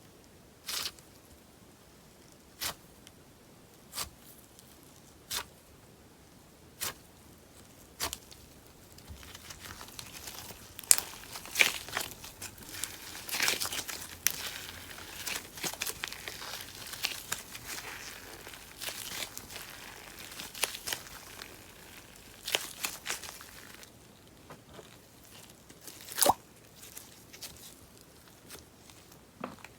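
Paper clay slime being pressed and broken apart by hand: single sharp crackles every second and a half or so, then a stretch of dense crunching and crackling lasting about fifteen seconds, then a few more sharp cracks near the end.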